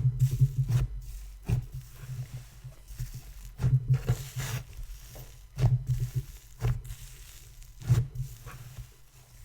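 Butter snow slime worked in the hands, sizzling and crackling, with irregular squishes and several louder presses.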